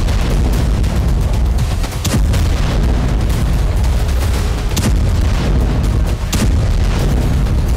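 Heavy booms like explosions or artillery fire, a few times at intervals of a couple of seconds, over a continuous deep rumble: dramatic war-style sound effects.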